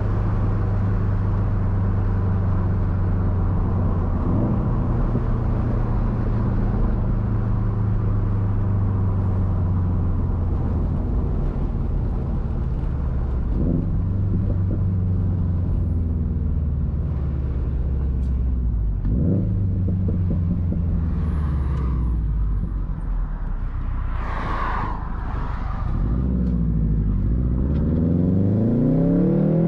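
2013 Subaru WRX STI's turbocharged 2.5-litre flat-four running through a Tomei Expreme Ti titanium exhaust, holding steady low revs for most of the stretch. Near the end the revs climb and fall, with a brief rushing noise just before.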